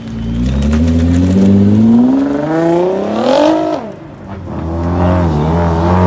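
Nissan GT-R engine accelerating past, its revs climbing for about three and a half seconds and then dropping sharply. After a short dip, a Mazda RX-7's rotary engine takes over, revs wavering and then holding steady as the car pulls away.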